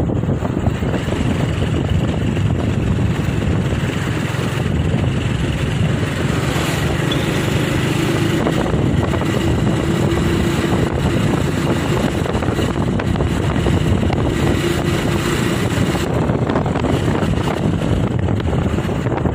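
A vehicle on the move, its engine running under a steady rush of wind on the microphone, with a steady engine hum standing out from about seven seconds in until about fifteen.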